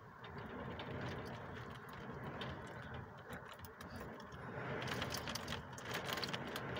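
Rain and gusting wind heard from behind a window: a steady, even hiss with scattered light ticks that grow denser about five seconds in.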